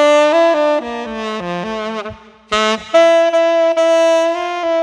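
Saxophone playing a short melodic phrase: a run of quick notes stepping downward, a brief break, then one long held note.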